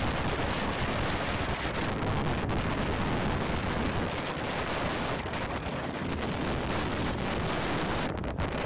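Strong sandstorm wind blowing across the microphone: a loud, steady rushing noise with no let-up.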